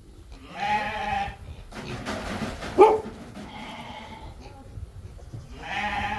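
Farm animals bleating at feeding time: several drawn-out, wavering calls, with one short, sharp, rising squeal about halfway through that is the loudest sound.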